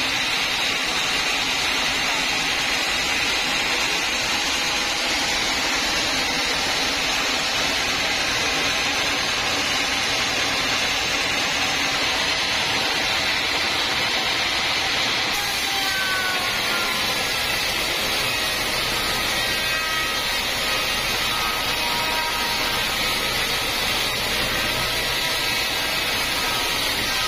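Sawmill band saw running steadily as its blade cuts lengthwise through a teak log. The sound changes abruptly about halfway through.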